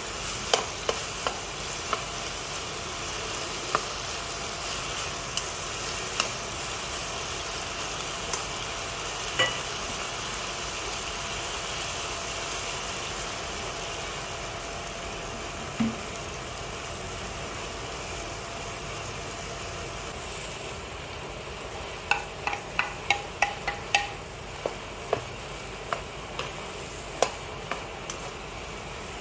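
Pork balls and sliced green chillies sizzling in a non-stick wok while a wooden spatula stirs them, with scattered clicks of the spatula against the pan and a quick run of taps about three-quarters of the way through.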